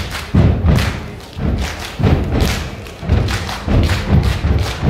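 Step team stepping in unison on a stage: a rhythmic run of heavy foot stomps and hand claps, about two to three strikes a second.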